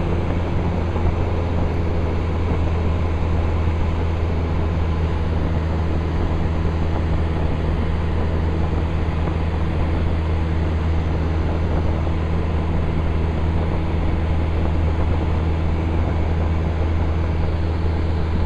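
Cessna 172's piston engine and propeller droning steadily in flight, heard from inside the cabin: a constant deep hum with a hiss of wind and engine noise over it.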